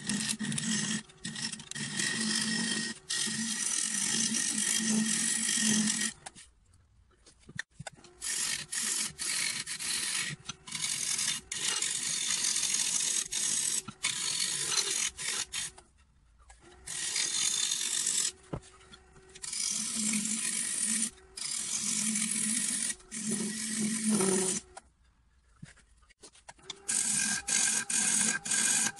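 Turning tool cutting into a spinning wooden bowl on a wood lathe, hollowing a recess in its face: a scraping hiss in repeated passes, broken now and then by short pauses when the tool comes off the wood.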